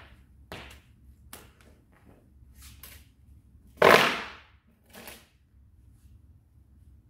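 A tai chi fan snapped open with one loud crack about four seconds in, echoing briefly in the hall. A few softer sharp clicks and swishes come before and after it.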